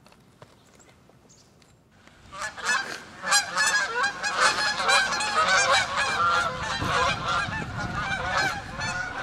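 A flock of geese flying overhead, many birds honking at once in a dense, overlapping chorus. The honking starts suddenly about two seconds in, after a quiet start.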